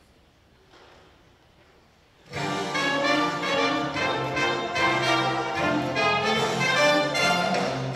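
Near silence for about two seconds, then a brass-band instrumental backing track starts suddenly and plays on over the stage loudspeakers as the song's introduction.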